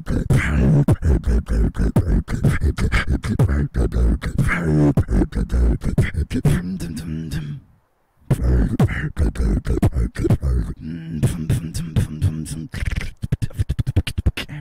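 Beatboxing into a handheld microphone: a fast, dense rhythm of percussive mouth sounds over a deep hummed bass. It cuts out for about half a second around the middle, then carries on.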